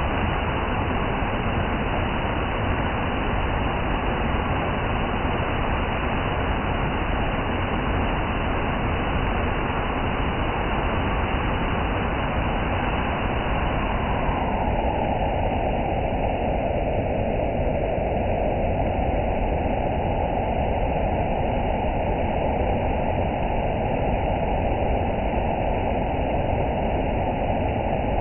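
Steady rain falling, a continuous even hiss. About halfway through, the higher part of the hiss drops away and the sound turns duller.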